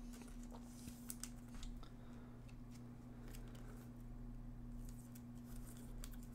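Faint rustling, scraping and light clicks of a trading card being handled and slid against a plastic sleeve, over a steady low hum.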